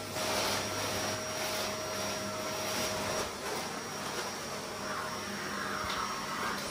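Dyson ball-type canister vacuum cleaner running steadily on a hard laminate floor, its hiss swelling and easing as the floor head is pushed back and forth.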